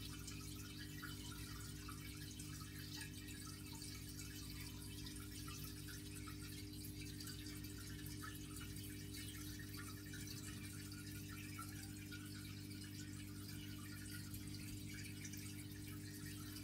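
Aquarium pump running with a steady low hum, under a continuous patter of trickling and dripping water with small bubbly crackles.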